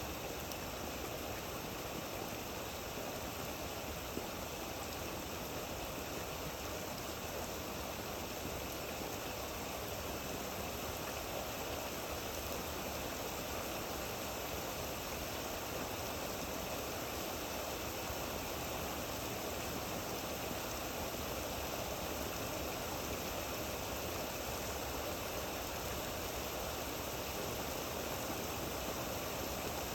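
Steady rain falling, an even, unbroken wash of sound with no distinct drops or pauses.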